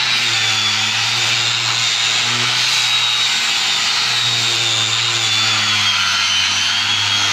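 Handheld electric disc sander running steadily with a high motor whine, its round sanding disc rubbing along a solid-wood door frame.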